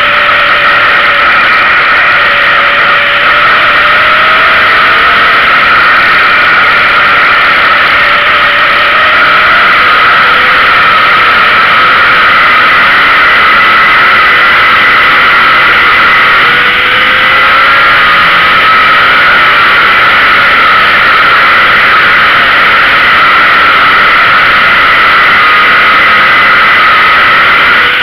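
Dirt-track street stock race car's engine running hard at racing speed, heard from the car's own rear deck, loud and steady with its pitch drifting slightly up and down.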